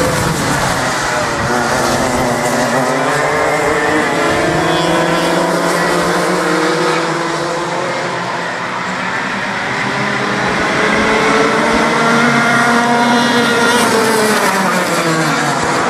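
Racing go-kart engines, several at once, their pitches rising and falling as the karts accelerate and back off through the corners. The sound dips a little about halfway through, then builds again.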